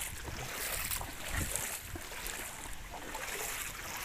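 Shallow floodwater sloshing and splashing with irregular small splashes, as from someone wading through it.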